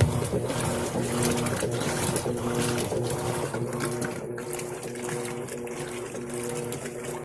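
Electrolux Essencial Care LES13 washing machine running, with water sloshing over a steady motor hum; the sound cuts off suddenly near the end.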